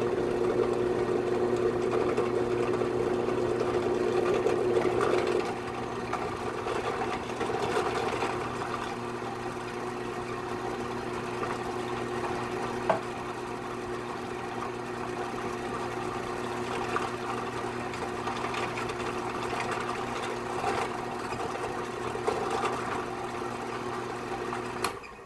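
Drill press motor running steadily while the bit is run down through the sun visor part to drill two screw holes. It is louder for about the first five seconds, then runs on more quietly until it cuts off near the end.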